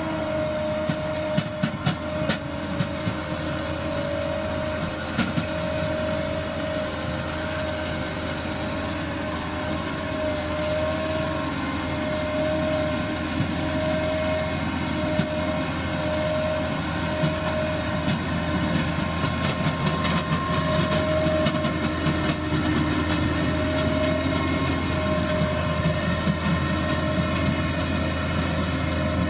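ROPA Tiger 4 sugar beet harvester running while lifting beets: a steady engine drone with the rattle of its lifting and cleaning gear and a wavering whine. A few sharp knocks come about one to three seconds in.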